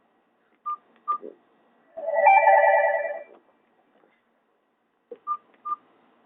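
Nokia 216 feature phone: two short keypad beeps with faint key clicks, then a roughly one-second pitched phone tone from its speaker (a Nokia 5230 tone), then two more keypad beeps, as the ringtone menu is stepped through.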